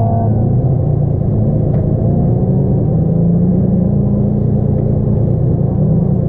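Turbocharged Toyota 2JZ engine in a Nissan S14 240SX drift car running under way, a loud steady rumble.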